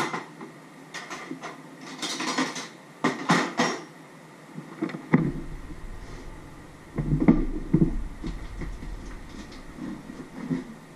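Knocks and clatter of dishes and containers being handled, with the fridge door opened partway through.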